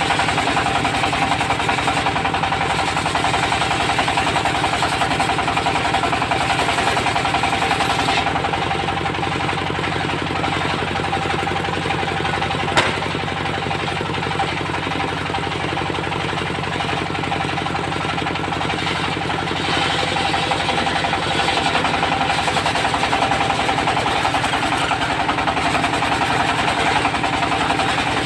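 Diesel engine of a mobile circular sawmill running steadily under a rapid knocking beat, with a steady high whine over it. A single sharp click about halfway through.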